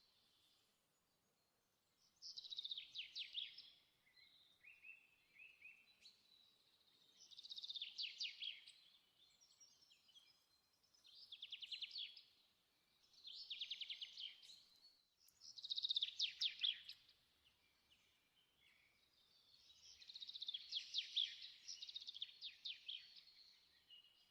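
A bird singing faintly in rapid trilled phrases of a second or two, repeated about every three to four seconds, with brief twitters between them.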